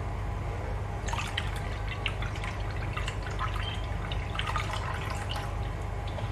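Custard mixture poured from a plastic bowl into a saucepan of milk, with a run of small drips and splashes from about a second in.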